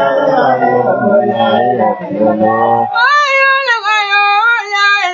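Devotional chanting in praise of God: several men's voices together for the first three seconds, then a single high voice takes over, singing long notes that bend up and down.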